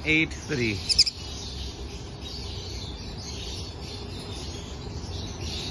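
Aviary birds chirping: a few sharp high chirps about a second in, over a steady background of twittering.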